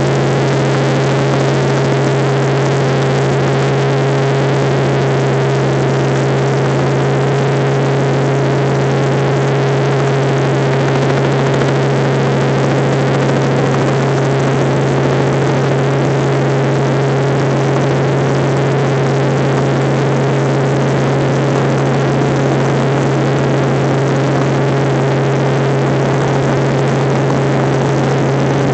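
Helicopter in level flight heard from inside the cabin: the engine and rotors make a loud, constant drone, a strong low hum under a wide hiss, unchanging throughout.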